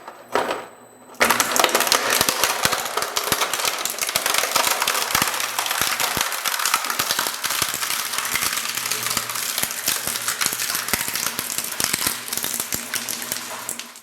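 Industrial shredder crushing and tearing material in its blades: after a short burst near the start, a dense, continuous crackling and snapping of many rapid impacts sets in about a second in and keeps up.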